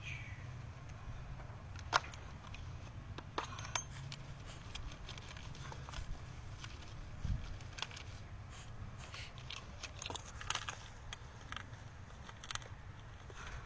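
Scattered rustling and small clicks of hands picking at a motorcycle seat and the cloth tucked into it, with one sharp click about two seconds in and a dull thump past the middle, over a steady low rumble.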